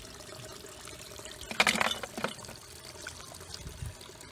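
Water trickling and splashing, with a louder splash about one and a half seconds in and a smaller one just after.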